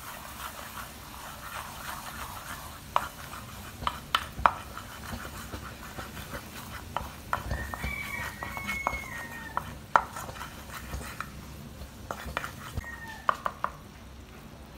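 A butter, honey and cinnamon mixture bubbling in an aluminium frying pan while a wooden spoon stirs it, with sharp knocks of the spoon against the pan. A thin high whine comes in twice, the longer about eight seconds in, a shorter one near thirteen seconds.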